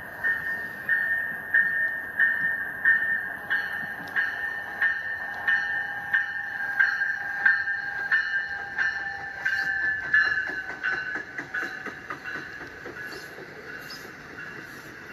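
Motorised LEGO train running on plastic LEGO track: a steady high motor whine, with the wheels clicking over the track joints about one and a half times a second. The clicks crowd together and fade as the train passes by near the end.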